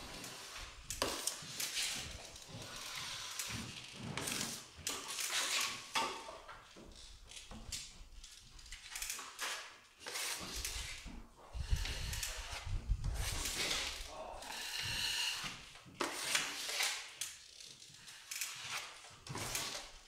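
Steel finishing trowel swishing and scraping drywall joint compound across a ceiling in repeated strokes, each about a second long, with the trowel also scraped across the hawk to reload mud.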